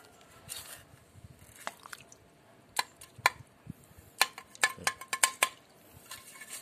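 Small metal hand hoe chopping into waterlogged mud to dig a planting hole: a run of sharp clinking strikes, some ringing briefly, bunched about three to five and a half seconds in, with wet squelching of mud and water.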